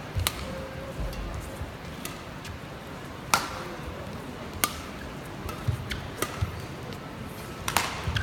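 Badminton rally: rackets strike the shuttlecock with sharp cracks about every second or so, with the players' footsteps thudding on the court between hits.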